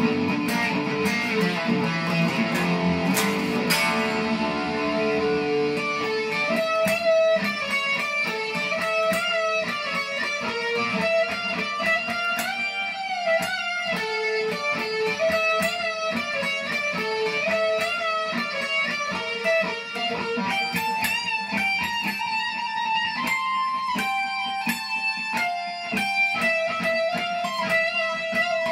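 Electric guitar played on a sunburst Les Paul-style guitar. Full, ringing chords in the first few seconds give way to a busy single-note lead line.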